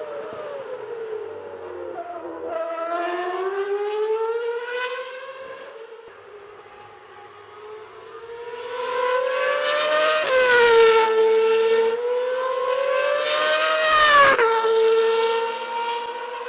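Toro Rosso Formula 1 car's engine at high revs on track, its pitch climbing steadily through each gear and dropping sharply at the gear changes, a few times. It fades to a distant sound about midway, then grows loud again for the second half.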